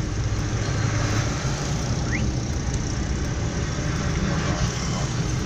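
Engine and road noise of a Changan Karvaan Plus van heard inside its cabin while driving in town traffic, a steady low rumble. A short faint rising chirp sounds about two seconds in.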